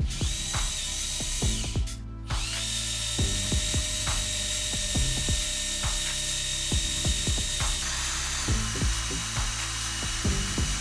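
A small power tool runs in spells with a steady high whine and hiss, stopping briefly about two seconds in and dropping slightly in pitch near the end. Background music plays underneath.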